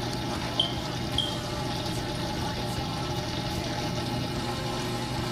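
Reef Octopus protein skimmer running with a steady hum and rush of air and water, its air intake still unmuffled, which is what makes it this noisy. Two brief high squeaks about half a second apart, around the first second.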